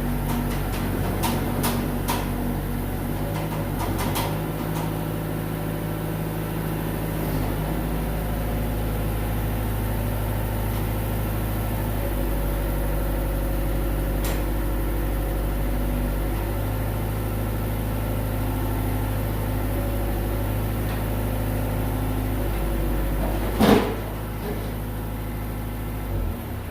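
Diesel excavator engine running, its note shifting every few seconds as the hydraulics take and release load. There are a few sharp clicks in the first few seconds, a single loud clunk near the end, and the engine drops down just before the end.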